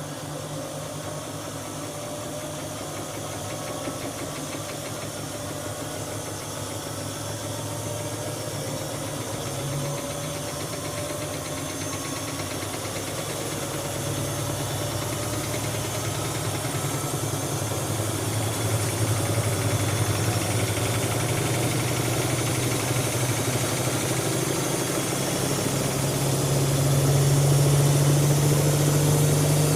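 Siemens Siwamat iQ washing machine drum speeding up into a spin, its motor whine rising slowly in pitch and getting steadily louder.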